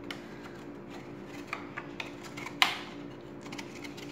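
Knife scraping and clicking against the inside wall of a large metal pot as it is run around the edge of a baked flan to loosen it, a few scattered clicks with one sharper clack about two-thirds of the way through.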